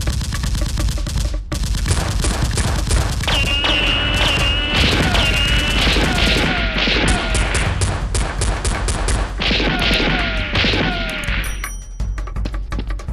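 Sustained rapid gunfire, many shots in quick succession, in a staged gun battle. From about three seconds in to near the end, a pitched musical layer with repeated short falling notes plays over the shots.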